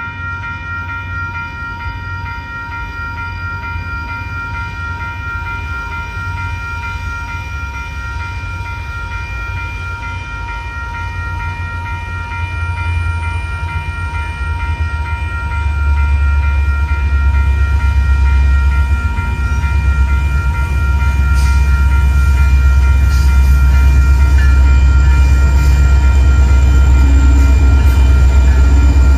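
Newly replaced electronic railroad crossing bell ringing steadily at a grade crossing. Under it the low rumble of an approaching Union Pacific train's diesel locomotives grows louder from about halfway in, and the lead locomotive reaches the crossing near the end.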